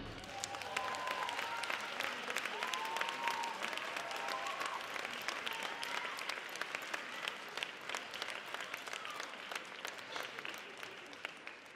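Ice rink audience applauding, with dense clapping and a few calls from the crowd in the first few seconds. The clapping gradually thins and fades toward the end.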